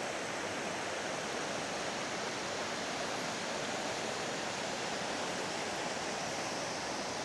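Steady, even rush of falling water from Aber Falls, a tall waterfall.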